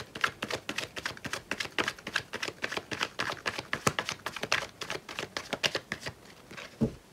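Hand-shuffling of a tarot deck: rapid papery card flicks, several a second, that stop about six seconds in, followed by a soft low thump.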